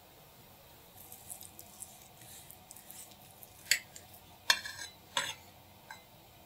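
Kitchenware handled on a work surface: light rustling and small taps, then three sharp clinks, the second and third ringing briefly like glass or metal, and a soft final tap.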